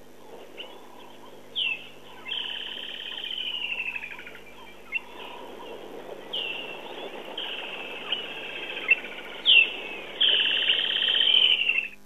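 Woodland kingfisher calling three times, each call a sharp high note followed by a long, slightly descending trill.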